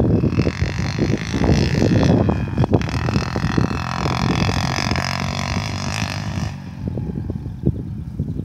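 Wind buffeting the microphone, with the engine of a distant small vehicle whining steadily from about half a second in until it fades out over six seconds in.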